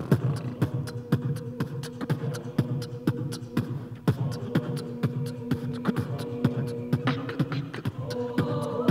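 Beatboxing: a voice doing vocal percussion in a quick, steady beat over a low chord hummed and held by the a cappella group. Sung voices swell in near the end.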